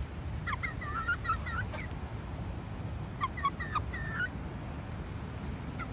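Chickens calling in two short runs of high, chirpy clucks, one about half a second in and another about three seconds in, over a steady low rumble.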